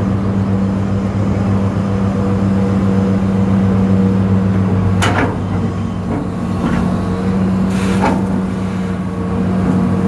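Excavator diesel engine running steadily, heard from inside the operator's cab, with a couple of sharp knocks about five and eight seconds in.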